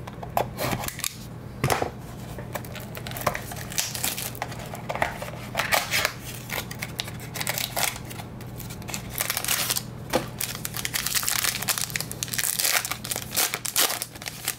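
Clear plastic shrink wrap being torn and peeled off a trading-card box, with irregular crinkling and crackling throughout, and near the end a foil card pack crinkling in the hands.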